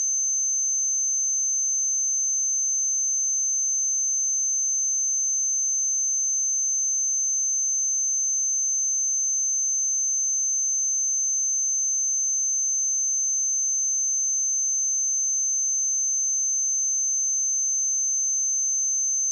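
A pure 6231 Hz sine-wave test tone, a steady high-pitched whistle held at one pitch and level without a break.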